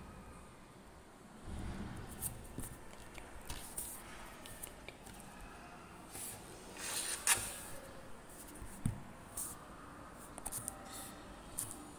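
Faint handling of paper and pen: soft rustles and scattered light clicks, with the loudest rustle and a sharp click about seven seconds in.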